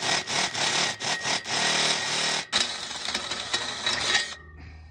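Cordless drill boring out a hole in a metal carport base frame rail, the bit grinding through the metal in quick stuttering pulses, then cutting steadily with a thin squeal. It stops about four seconds in.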